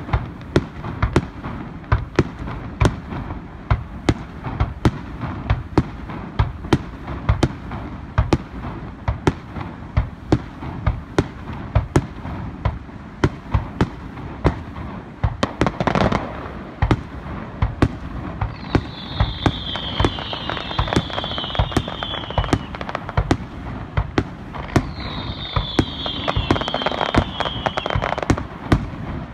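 Aerial fireworks display: a steady string of sharp reports from shells launching and bursting, two to three a second, with a longer, heavier burst about halfway through.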